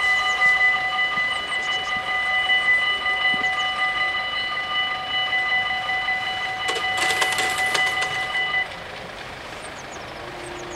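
Dutch level crossing bells ringing steadily while the half-barriers lower, with a burst of clattering as the barrier arms come down about seven seconds in. The bells cut off suddenly about eight and a half seconds in, once the barriers are down, leaving a low steady hum.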